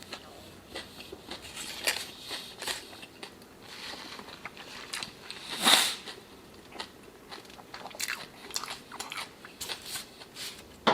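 Close-miked chewing and crunching of fast food: many small wet clicks and crackles of a mouth working on bites. The loudest moment comes a little past halfway.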